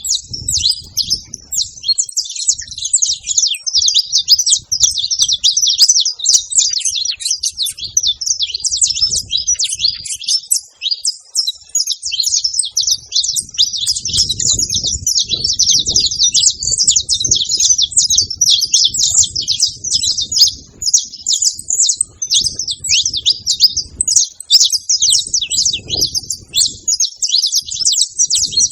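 A flock of saffron finches chirping and chattering together without pause, many rapid overlapping calls. Weaker low rumbling comes and goes through the middle of the stretch.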